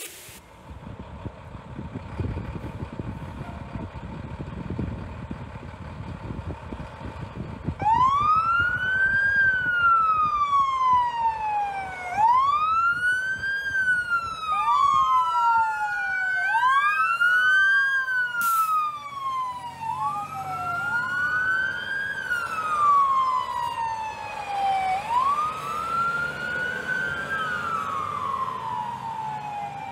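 Heavy fire truck engines rumbling as the trucks pull out. About eight seconds in, an electronic wail siren starts, sweeping quickly up in pitch and then slowly down every three to four seconds. Soon a second siren joins, so two wails overlap out of step, with a brief burst of noise partway through.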